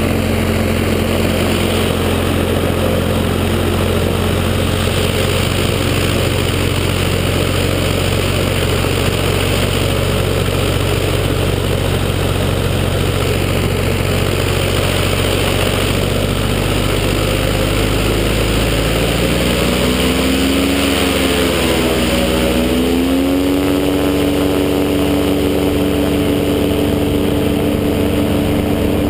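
Ultralight trike's engine and pusher propeller running steadily at low power, then opened up about two-thirds of the way through: the pitch rises and wavers, then holds a higher steady note as the trike starts its takeoff roll.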